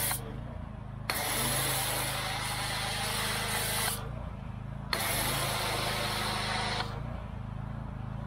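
Pressure washer running with a steady hum while its foam cannon sprays snow foam onto a pickup's body: two bursts of hissing spray, about three and two seconds long, each starting with a click as the trigger is squeezed and cutting off when it is let go.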